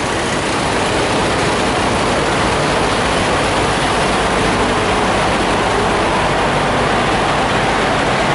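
Diesel engines of semi trucks idling at the fuel islands, a loud, steady drone with no break.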